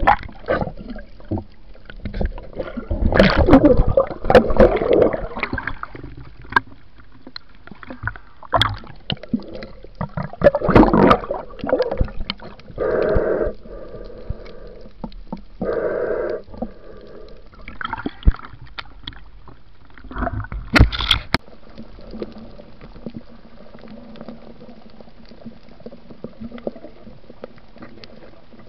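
Sea water sloshing, splashing and gurgling around a diver going under, with irregular bursts in the first half and quieter, steadier underwater noise near the end.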